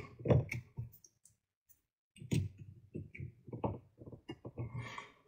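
Light clicks and taps of test leads and clip leads being handled on a small circuit board: a few near the start, then a quicker run of clicks from about two seconds in.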